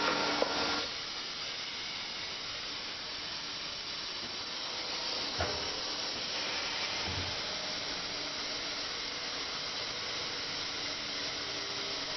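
Sandpaper rubbing that stops less than a second in, leaving a steady hiss with a short knock about five seconds in.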